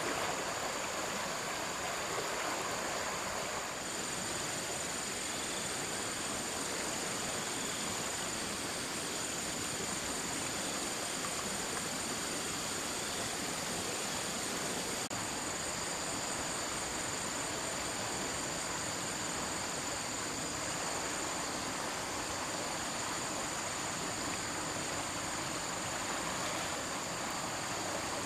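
Flowing stream water rushing steadily, with a steady high-pitched whine added from about four seconds in.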